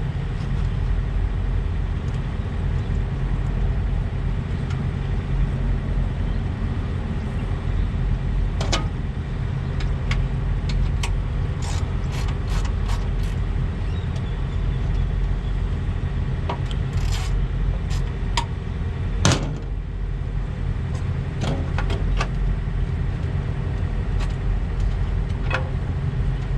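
Steady rumble of an idling diesel engine, with scattered metallic clicks and clinks of hand tools and parts being worked by hand in a tight spot, the loudest clink about two-thirds of the way through.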